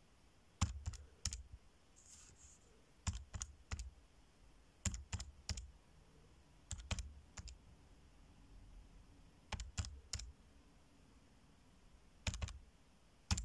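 Keys of a Casio fx-83GT PLUS scientific calculator being pressed in short runs of two to four clicks every second or two, as data values are entered each followed by the equals key.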